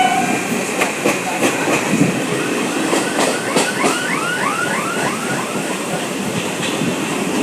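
Passenger train running along the track, its wheels clicking over the rail joints with a steady rumble. About halfway through come a string of short, high chirps that rise and fall.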